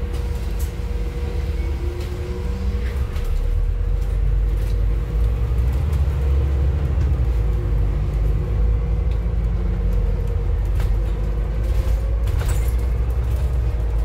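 Inside a Scania N280UD bus as it drives, its Scania DC09 five-cylinder gas engine and Voith automatic gearbox make a deep, steady rumble that grows louder about three to four seconds in as the bus pulls harder. A faint steady whine runs underneath, and the body gives occasional light knocks and rattles.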